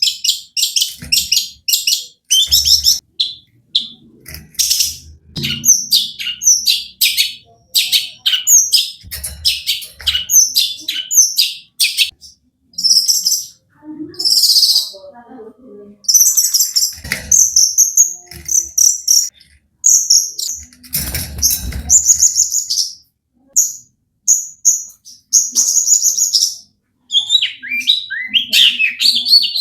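Long-tailed shrike (cendet) singing hard: rapid strings of short, sharp, high notes and harsh chatters, broken by brief pauses, with song full of borrowed phrases (isian).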